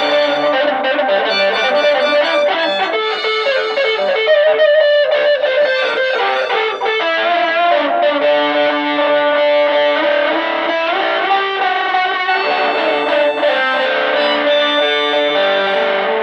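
Electric guitar played through effects, layering held, overlapping notes that shift in pitch every second or so.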